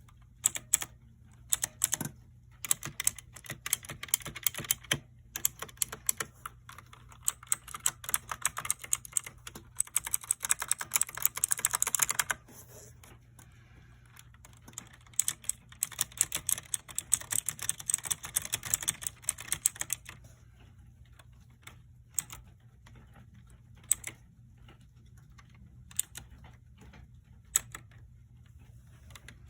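Custom mechanical keyboard being typed on: fast runs of key clacks, a short pause about twelve seconds in, another fast run, then single keystrokes a second or two apart.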